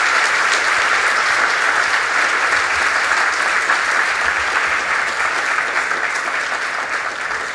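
Audience applauding in a large hall: steady, dense clapping that starts to fade near the end.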